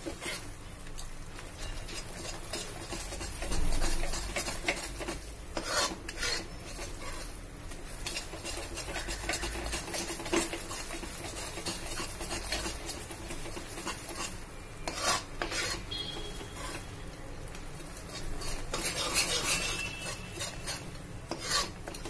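Metal spatula scraping and stirring a thick khoya (mawa) barfi mixture around an aluminium kadai, in irregular rasping strokes against the pan with a few louder scrapes. The mixture of khoya, sugar, cardamom and almonds is being stirred continuously as it cooks.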